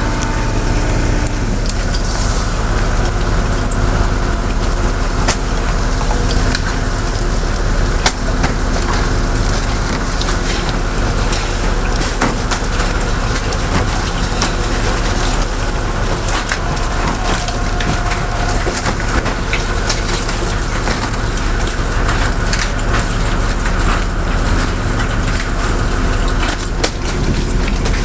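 Automatic squid-jigging machines reeling in their lines, the jigs clattering continuously over the rollers, over the steady low drone of the boat's engine.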